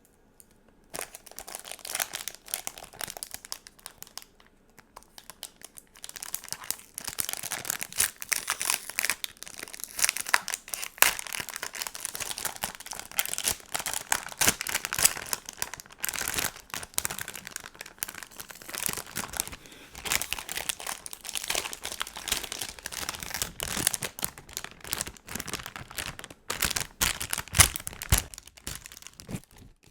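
Stickers and their plastic packaging crinkling and crackling as they are handled, in dense runs with short pauses. It starts about a second in.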